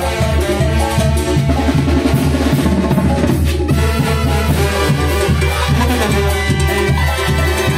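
A brass band playing a lively tune, with drums keeping a steady beat.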